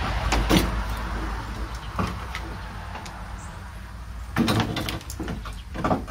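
Scattered knocks and scrapes of a replacement radiator and its cooling fan being lowered and worked down into the car's radiator support, with the loudest clunks in the last couple of seconds as it seats.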